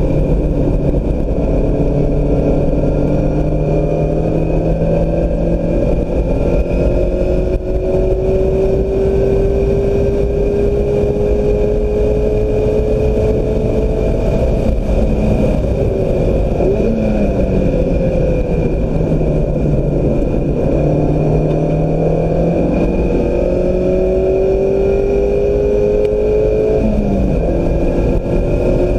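Mazda MX-5 Miata four-cylinder engine under hard acceleration on track. Its note climbs steadily, then drops back with a quick rev blip twice as the car slows and shifts for corners, over loud wind and road noise.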